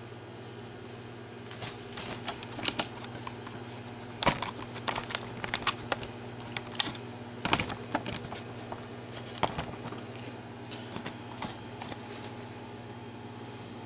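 Microwave oven running with a steady electrical hum, while irregular sharp clicks and ticks come and go from about a second and a half in until near the end.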